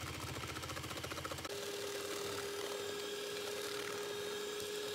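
Electric hand mixer running, its beaters whisking chocolate batter in a stainless steel bowl. About a second and a half in the sound changes to a steady whine.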